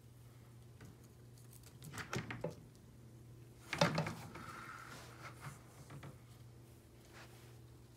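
Handling noises from an arm reaching into a glass terrarium: a few light clicks, then a sharper knock and clatter about four seconds in, with fainter taps after, over a steady low hum.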